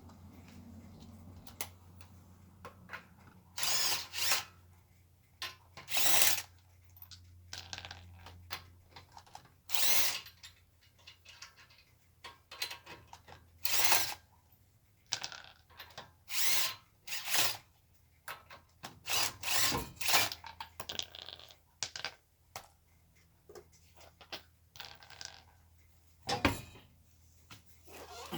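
Compact 18-volt cordless impact wrench fired in a string of short bursts, each under a second, with pauses between them.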